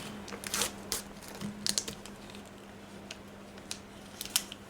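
Irregular light clicks and short crinkles of small plastic miniature toys and their packaging being handled and unwrapped, over a faint steady low hum.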